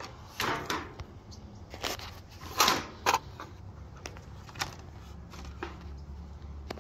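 Handling clacks and knocks from an AR-15 rifle and its polymer magazine, a few separate sharp hits, the loudest two a little past the middle.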